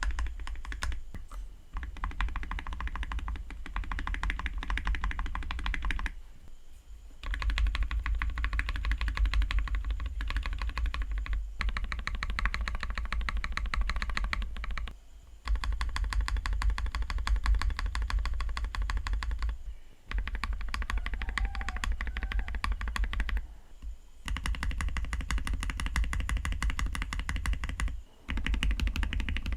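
Mechanical keyboard typing: rapid keystrokes on lubed Akko CS Matcha Green switches in an aluminium Tofu 60 case. The keystrokes come in long runs broken by brief pauses, about five times.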